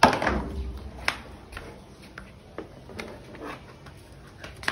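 Plastic chair knocking and clattering as it is carried: a sharp knock at the start and another about a second in, then a few lighter clicks.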